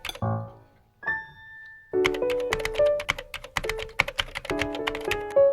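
Background music: a light instrumental track with a quick clicky beat under short melodic notes. It drops out briefly about a second in, then comes back.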